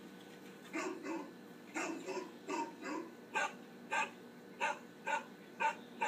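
Recorded dog barks played through a laptop's speakers: a string of about ten short barks, starting about a second in.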